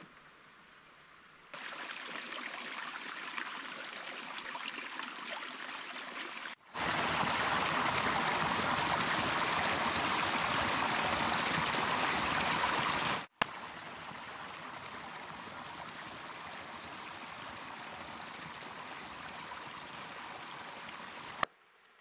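Small mountain creek splashing down over rocks in a steady rush of water. It comes in three stretches that start and stop abruptly. The middle stretch is the loudest and fullest, from about a quarter of the way in to past halfway.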